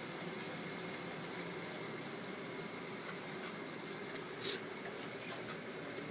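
Steady room hum with a few soft clicks and rustles, the loudest about four and a half seconds in, as two dogs shuffle on their beds with rubber Kong toys.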